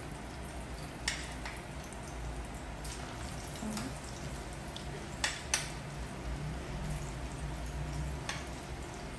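Battered pork tenderloin pieces sizzling in hot oil during their second fry for crispness, with several sharp clicks of metal tongs, the two loudest close together about five seconds in.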